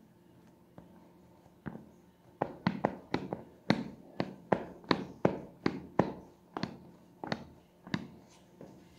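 Footsteps of Under Armour Charged Assert 9 running shoes on a ceramic tile floor: a quick series of sharp sole slaps, about two or three a second, starting a couple of seconds in and thinning out near the end.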